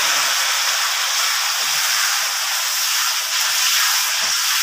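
Hot oil sizzling steadily in a pan as a tempering (tadka) of mustard seeds, urad and chana dal, ginger, green chillies and freshly added curry leaves fries.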